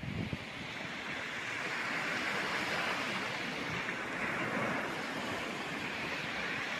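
Sea waves washing onto the shore: a steady rushing hiss that swells over the first couple of seconds and then holds.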